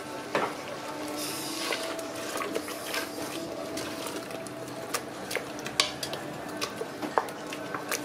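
Wooden spoon stirring a thick tomato and herb mixture in a stainless steel pot, with scattered light knocks and scrapes of the spoon against the pot.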